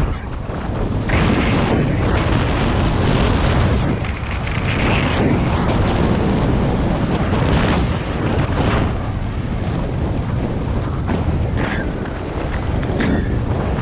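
Wind rushing and buffeting over the microphone of a camera carried by a skier running downhill, swelling and easing every few seconds.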